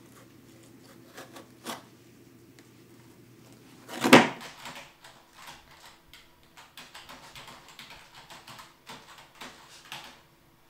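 A single loud knock about four seconds in, then irregular light clicking of a computer keyboard being typed on. A faint low hum and a few scattered clicks come before the knock.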